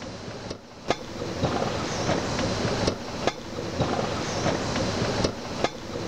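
Mini alpine coaster cart running down its metal rails: a steady rattle and rumble of the wheels, growing louder about a second and a half in, with sharp clacks now and then.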